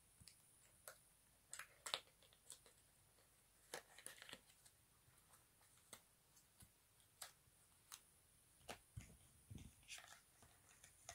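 Faint, scattered small clicks and crinkles of hands handling a small cosmetic item and its packaging, over near silence; the sharpest click comes about two seconds in.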